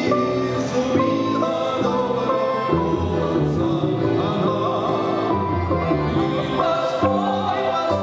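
Live Russian folk instrumental music: a garmoshka (Russian button accordion) with a plucked balalaika and balalaika-contrabass, playing a dance tune over a bass line that steps from note to note.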